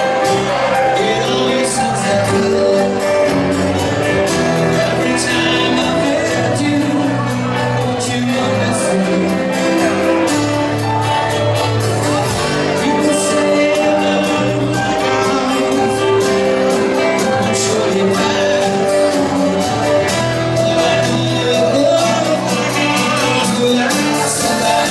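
Live rock band playing 1970s pop rock: drums keeping a steady beat under electric and twelve-string acoustic guitars and keyboard, with a male lead singer.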